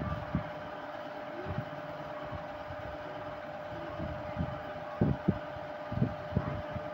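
Thick fish curry simmering in an iron kadai, with a few low plopping thuds of bursting bubbles around five to six and a half seconds in, over a steady hum.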